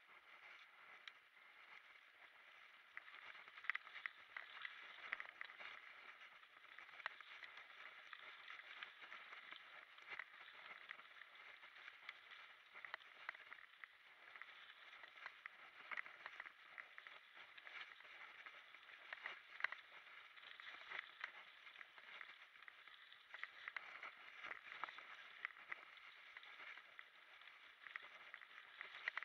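Faint sound of a mountain bike rolling down a rough singletrack trail: a steady rustle of tyres over gravel and roots, with frequent small knocks and rattles from the bike.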